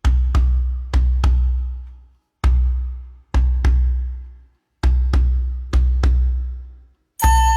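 Deep, booming drum strokes in a music track, falling singly and in quick pairs, each with a sharp attack and a low boom that rings out and fades. Near the end a held, flute-like woodwind melody comes in over the drum.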